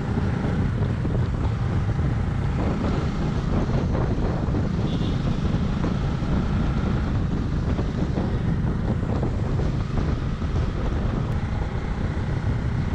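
Motorcycle riding along: steady wind noise on the microphone over the engine running.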